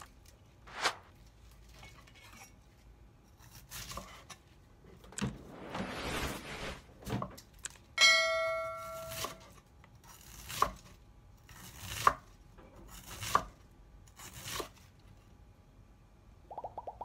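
Cleaver chopping napa cabbage on a wooden cutting board: single chops through the stalk onto the board, about one every second and a half in the second half, after a stretch of leaves rustling as the head is handled. A short ringing chime sounds about eight seconds in, and a fast run of clicks starts near the end.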